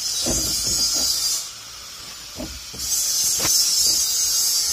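Angle grinder grinding steel: a high, hissing screech in two spells, the first stopping about a second and a half in and the second starting at about three seconds, with a few short knocks in between.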